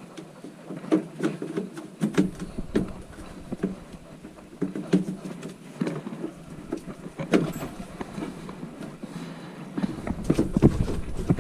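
Irregular clicks, taps and knocks of hands-on work on a furnace's flue pipe and parts. A low rumble comes in near the end.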